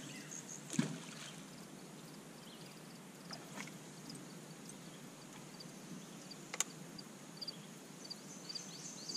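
Quiet riverside background from a small boat, with repeated short high chirps of a small bird or insect. A thump comes just under a second in and a sharp click about six and a half seconds in.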